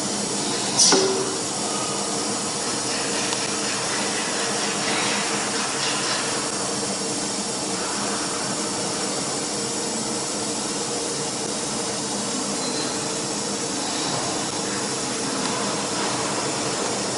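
CNC wood router with an automatic tool changer running during automatic tool-length measurement: a steady machine hum and hiss, with one short, sharp hiss about a second in.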